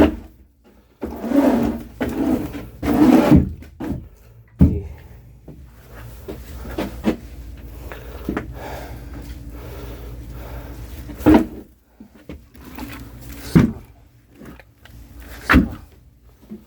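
Split oak firewood being handled and stacked: pieces knock and clunk together at irregular moments, with rustling and scraping in between.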